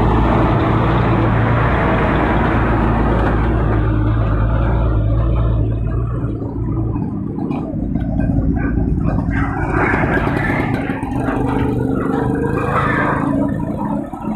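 Four-stroke auto rickshaw engine idling with a steady low drone that weakens about seven seconds in.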